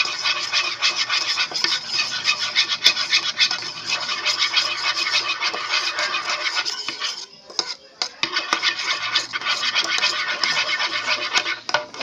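A stirrer scraping rapidly around a container, mixing a glue-based slime mixture. The brisk scratching stops briefly about seven seconds in, then starts again.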